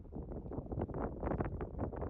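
Low steady hum of a ferry's engines underway, under a dense run of irregular crackles and clicks.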